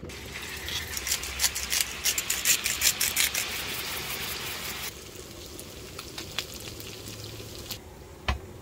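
Steak pieces sizzling and spattering in hot oil in a cast iron skillet, with dense crackling and many sharp pops. About five seconds in it drops to a softer sizzle with scattered pops.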